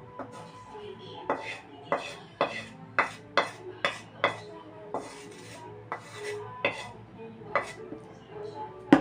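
Wooden spatula knocking and scraping against a wok as stir-fried vegetables are scraped out into a plastic tub. There are a dozen or so sharp, irregular knocks, a little more than one a second.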